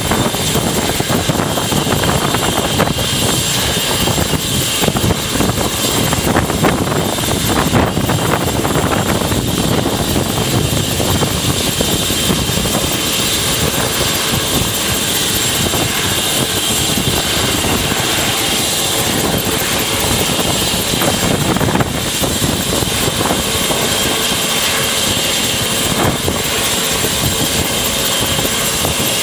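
Eurocopter EC120 Colibri helicopter running on the ground with its main rotor turning. The Arrius turboshaft and fenestron tail rotor give a steady rushing noise with a constant high whine over it.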